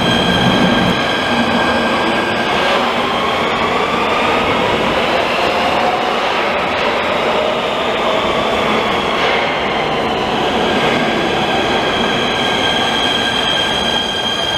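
Nuremberg U-Bahn trains in an underground station: the steady rumble and wheel noise of a metro train with the whine of its electric traction motors gliding up and down in pitch. The sound gets suddenly louder right at the start.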